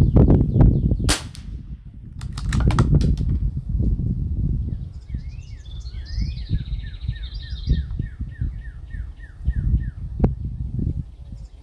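A single .22 LR shot from an Anschutz 1761 bolt-action rifle about a second in, followed by a quick run of metallic clicks as the bolt is worked, and another sharp crack near the end. A songbird trills and chirps in the background over a low rumble of wind on the microphone.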